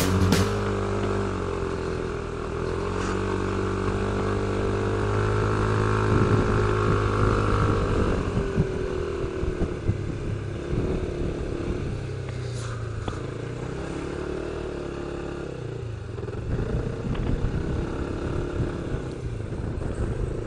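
Motorcycle engine running at road speed through a series of bends, its pitch rising and falling as the throttle opens and closes, over a steady rush of wind.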